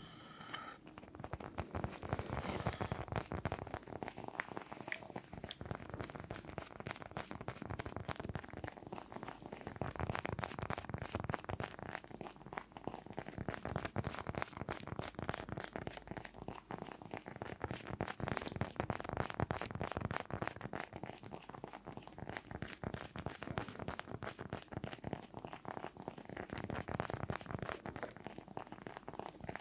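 Rapid ASMR tapping and scratching on an object: a dense, continuous stream of small clicks and scratches.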